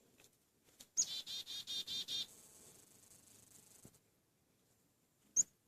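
A small wild songbird calling close by: a high falling note about a second in, then a quick run of about seven harsher repeated notes lasting just over a second, with a short high chirp near the end.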